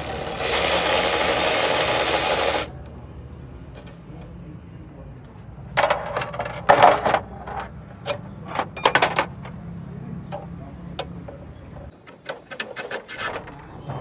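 Cordless electric ratchet running for about two seconds as it spins out a throttle-body bolt, followed by scattered clinks and knocks of metal tools and the removed throttle body being handled.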